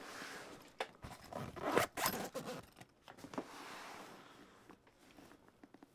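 Zippers on a StarFrame Brick backpack cooler bag being run along its pockets in several rasping pulls, loudest about two seconds in, with the fabric of the bag shifting under the hands.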